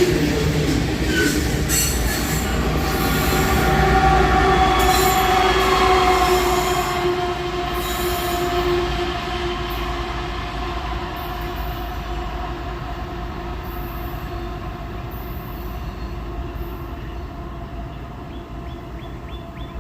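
Freight train rolling past with long, steady squealing tones from the wheels that slide slightly down in pitch, fading as the train moves away.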